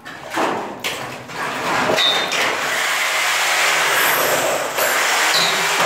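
A handheld electric power tool working against a concrete ceiling, running loud and steady. It starts about a second and a half in, after a few short knocks.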